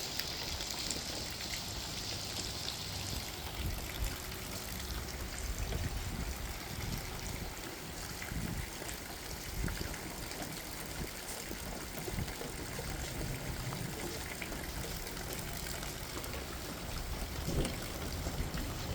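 Steady rain with water trickling and running, over an uneven low rumble.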